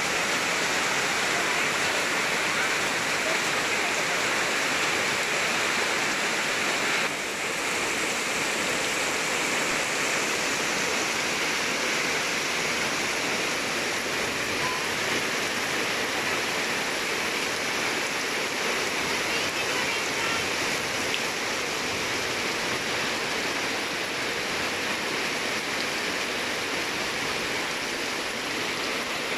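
Heavy rain pouring steadily in strong wind, a dense, even hiss.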